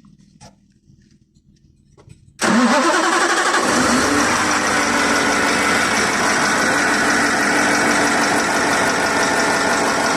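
KamAZ truck's diesel engine starting about two and a half seconds in: it catches at once, its pitch rises for about a second, then it settles into a steady idle.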